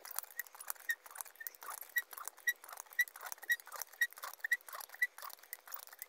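High-lift jack being pumped to raise a heavy soil-filled tyre: a run of short clicks from the ratchet climbing the perforated steel bar, with a brief squeak about twice a second.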